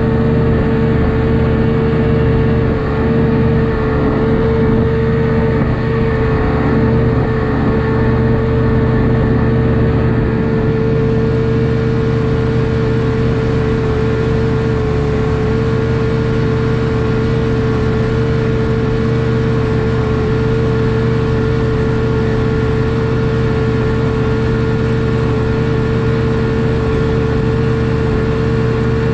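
A 1999 Evinrude FICHT 150 two-stroke V6 direct-injection outboard running at a steady speed, with a strong steady whine over the engine note and no change in pitch.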